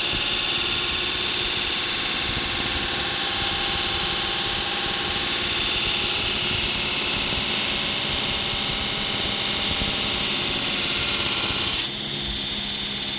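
A Torus 2x72 belt grinder with a 36-grit belt grinds 440C stainless steel under hard pressure, making a loud, steady, hissing grind over the hum of the 1 hp motor. Near the end the grinding hiss drops away and the grinder runs on alone.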